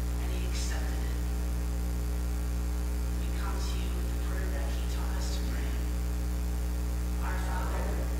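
Steady electrical mains hum, the loudest thing, with faint, indistinct voices now and then beneath it.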